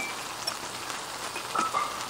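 Pot of ramyeon boiling on a camp stove: a steady bubbling, sizzling hiss, with a short clink about a second and a half in.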